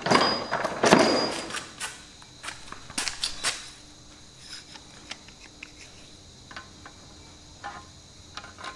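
Mole grips (locking pliers) picked up and handled at a tractor gearbox: a burst of rummaging and metal clatter in the first second or so, a few sharp metal clicks between about two and a half and three and a half seconds, then only faint occasional clicks.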